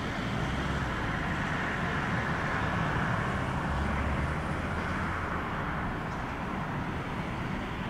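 Engines of a column of ambulances, a command van and a fire engine running steadily, with road and traffic noise as the vehicles move off.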